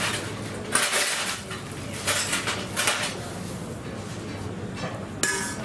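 Metal utensil scraping and clattering in a frying pan as penne in tomato sauce is stirred and tossed over a gas burner, in several short bursts.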